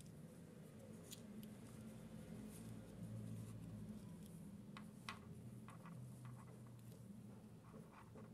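Faint handling noise of small objects: a few light clicks and taps, scattered and uneven, over a low steady hum.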